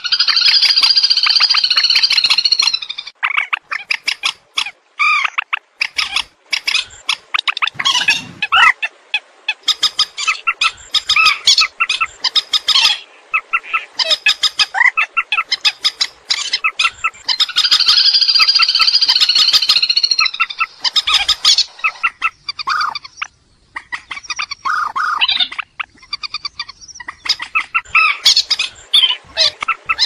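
Recorded calls of the trích ré, a swamphen, played as a decoy track: harsh, loud shrieking phrases mixed with rapid clucking and chattering. A long shriek at the start comes round again about halfway through, as the recording loops.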